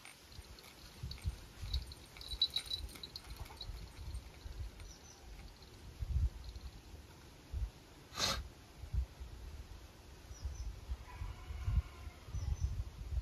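Quiet outdoor background: irregular low bumps and rustles, a few faint short high chirps, and one sharp click about eight seconds in.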